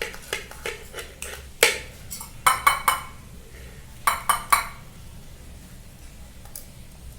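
A spoon clinking against a dish while food is scooped: light taps, a sharp clink, then two quick runs of about three ringing clinks, and then it goes quiet.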